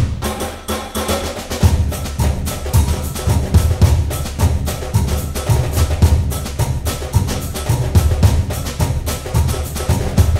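Background music: busy clicking percussion over a pulsing low drum beat. The low beat thins out at the start and comes back strongly about one and a half seconds in.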